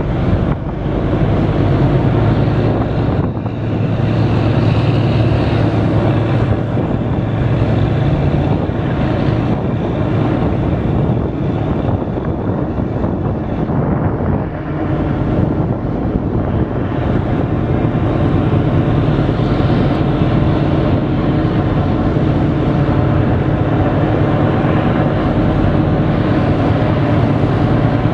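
Marine diesel engines of a tug and a ship manoeuvring close by, a steady low drone, with propeller wash churning the water.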